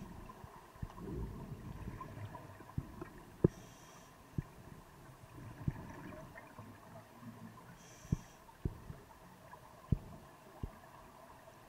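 Scuba diver breathing through a regulator, heard underwater: a short hiss of inhalation about every four seconds, with bubbly rumbling exhalations between. Several sharp low knocks are scattered throughout.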